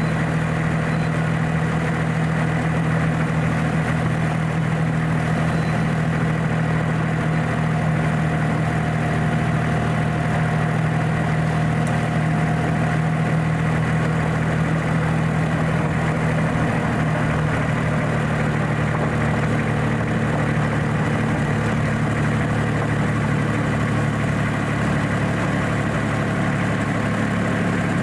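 Engine of a ride-on miniature railway locomotive running steadily under way, a constant hum. The engine note shifts slightly a little over halfway through.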